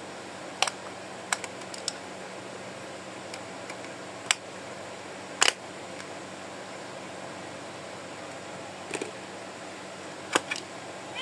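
Scattered sharp clicks and taps from a small screwdriver and the plastic casing of a pop-it speed push game console as the screw on its back cover is worked, over a steady hiss.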